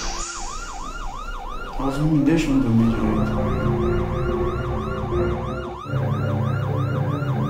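A siren wailing in quick rise-and-fall sweeps, about three to four a second. A low droning hum joins underneath about two seconds in.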